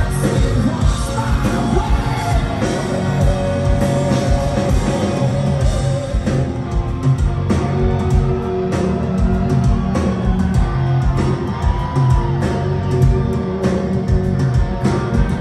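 Live rock band playing loud: electric guitars, bass and drums under a male lead vocal, heard from the audience in a large hall.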